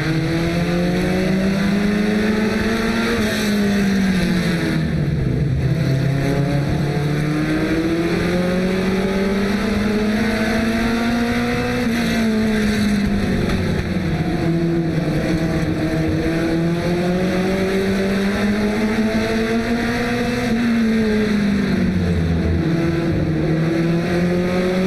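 Carbureted Ford 2300 four-cylinder short-track race car at racing speed, heard from inside the cockpit. The engine note climbs for several seconds and then drops sharply, over and over about every eight seconds, as the car accelerates down the straights and lifts for the turns.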